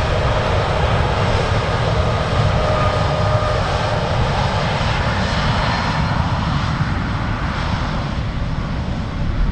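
General Electric GEnx-1B64 turbofans of a Boeing 787-8 at takeoff thrust as the airliner rolls past on its takeoff run. They make loud, steady jet noise with a faint whine that fades out about two seconds in.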